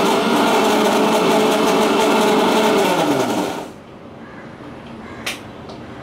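Electric mixer grinder running steadily as it grinds the coconut and gooseberry chutney, then switched off about three and a half seconds in, its motor winding down with a falling pitch. A single sharp click follows near the end.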